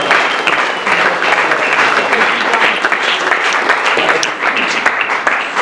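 A roomful of people applauding, a dense steady clapping.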